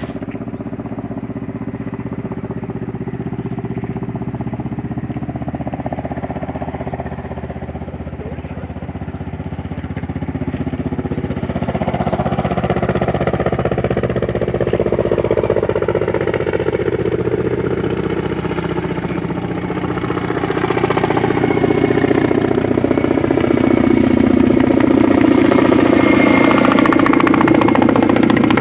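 Kamov Ka-32 helicopter with coaxial rotors, its twin turboshaft engines and rotors running steadily. The sound grows louder about a third of the way in and again two-thirds in, with tones that slide in pitch.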